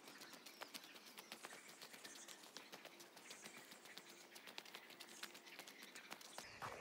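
Faint footsteps on a dirt trail strewn with leaf litter, a quick irregular run of scuffs and light crunches, several steps a second.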